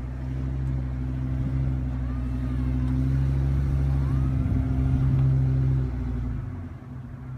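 2003 Ford F350 pickup's engine running steadily under load, its note swelling over the first few seconds, then dropping off about six seconds in.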